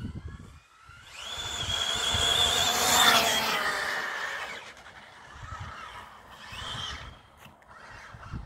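Arrma Infraction 6S RC car's brushless motor and drivetrain whining under hard throttle, all four tyres spinning on the damp road with a hiss of spray. The high whine builds from about a second in, peaks around three seconds and fades by four and a half, and a shorter, fainter burst comes near seven seconds.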